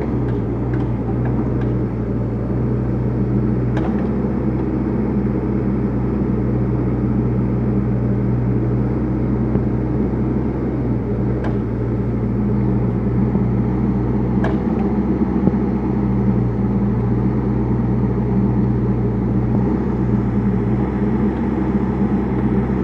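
Kubota KX121-3 mini excavator's diesel engine running steadily at working revs as the boom and bucket dig soil, with a few sharp clicks about 4 seconds in and twice more midway.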